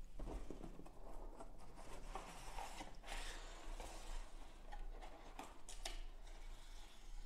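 Faint rustling and scraping of a cardboard box being handled as its hinged lid is flipped open, with a few light clicks and knocks from the packaging.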